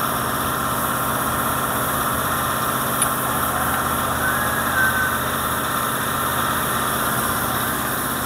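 An engine idling steadily, with a sharp click about three seconds in and two brief high squeaks a little after.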